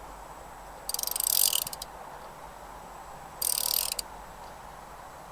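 Socket ratchet clicking in two short runs, about a second in and again past three seconds, as it is swung back between turns while a new spark plug is tightened.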